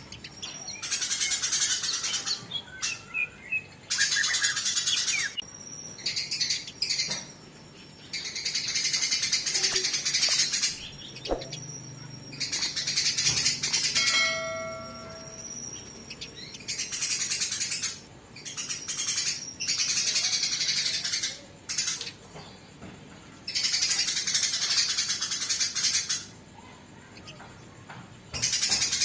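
Eurasian tree sparrows (burung gereja) giving harsh, dense fighting chatter in repeated bursts of a second or two, with short pauses between them. One short, clear, pitched note sounds about halfway through.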